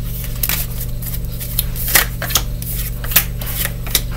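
Tarot cards being shuffled by hand: irregular soft snaps and rustles, a few sharper ones about midway, over a steady low hum.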